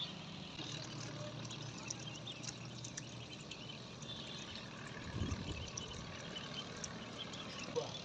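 A large flock of ducklings peeping, many small high chirps overlapping, with a brief low sound about five seconds in.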